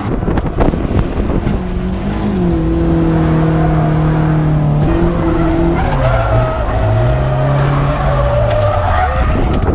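Nissan 240SX S13's engine held high in the revs while drifting, with the tyres skidding. The engine note holds steady, drops about five seconds in, dips and climbs again, then falls near the end.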